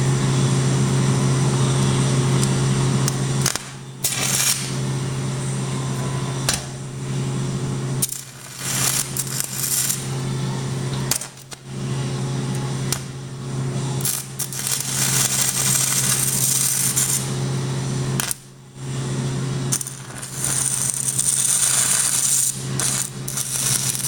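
Stick welder's arc crackling and buzzing steadily as a rod burns in a tack weld on a frame joint; the arc goes out and restrikes about four times.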